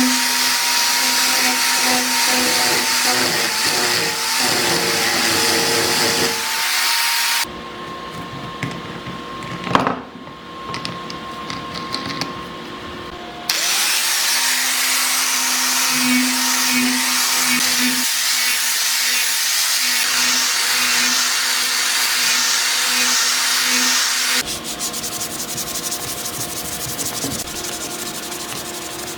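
Small electric power tool running with an abrasive working the steel of a sword blade, in cut-together stretches: the sound changes abruptly three times. It drops to a quieter stretch about seven seconds in, with a single sharp click near ten seconds, comes back about six seconds later, then changes again near the end.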